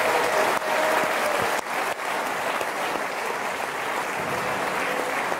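Large audience applauding steadily, many people clapping together.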